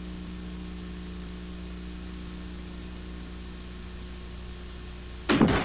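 Steady low electrical hum with a background hiss, the noise floor of an old black-and-white video's soundtrack. Shortly before the end a sudden louder sound cuts in.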